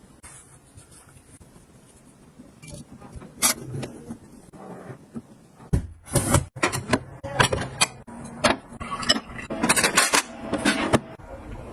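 Household items and gadgets being handled: irregular clicks, taps and short rubbing scrapes, sparse at first and busier from about halfway through.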